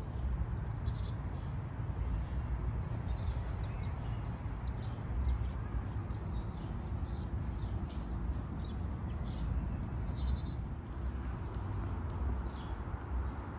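Many small birds chirping: a constant scatter of short, high-pitched chirps that slide down in pitch and overlap one another, over a steady low rumble.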